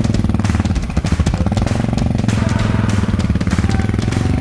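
Enduro motorcycle engine running with a rapid, even pulsing beat. Its pitch steps up a little about a second and a half in and again near the end as the revs rise.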